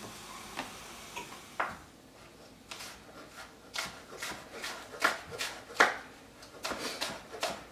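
Chef's knife chopping green onions on a wooden cutting board: a steady run of sharp knife strikes, about two to three a second, starting about two and a half seconds in, after a single knock.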